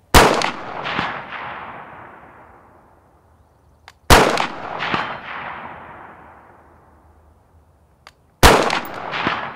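Three rifle shots about four seconds apart from a 5.56 AR-15 with an 18-inch barrel and a muzzle brake. Each shot is followed by a long echo rolling off over a few seconds.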